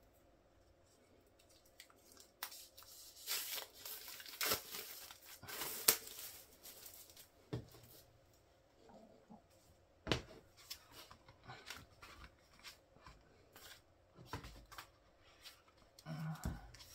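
Clear plastic shrink wrap being torn and pulled off an album package, crinkling on and off, with light handling of the cardboard album.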